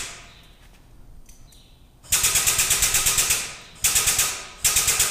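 A tool rattling rapidly in bursts, about nine strikes a second, on the aircraft engine's hardware. One burst lasts over a second, starting about two seconds in, and two short bursts come near the end.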